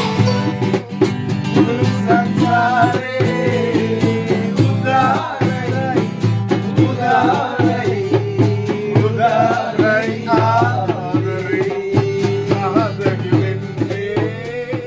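Fender acoustic guitar strummed in steady chords while a man sings a melody over it; the song trails off near the end.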